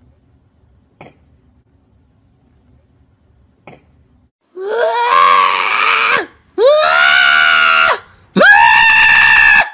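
A cat yowling: three long, loud calls starting about four and a half seconds in, each sliding up in pitch at the start and then held.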